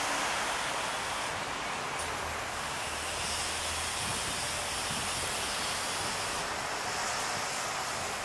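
City street traffic noise, a steady rush of passing vehicles, with a low engine hum for a few seconds in the middle and two brief hisses.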